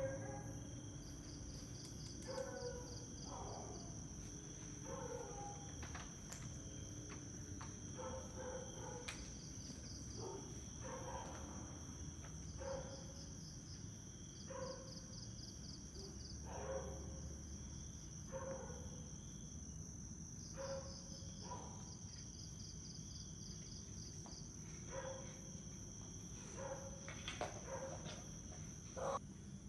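Insects trilling steadily, with trains of rapid cricket chirps coming and going, and irregular short knocks every second or two.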